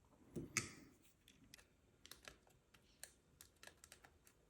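Faint, irregular small clicks and taps of fingers fiddling a tiny nut onto the thread of an MMCX socket on a 3D-printed plastic ear cup, trying to get the nut started.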